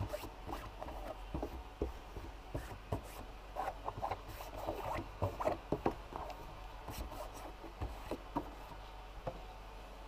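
Plastic fairing panels of a Yamaha Tracer 700 being worked loose and handled: irregular clicks, knocks and plastic rubbing, thickest from about three and a half to six seconds in.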